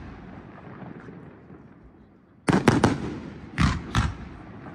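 Aerial fireworks going off: a fading rumble at first, then a quick cluster of three sharp bangs about halfway through and two more bangs about a second later, each trailing off in a rumbling echo.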